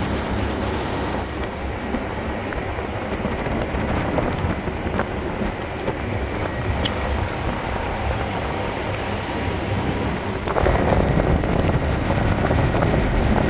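Small motorboat under way: a steady wash of wind on the microphone and water against the hull. It gets louder about ten seconds in.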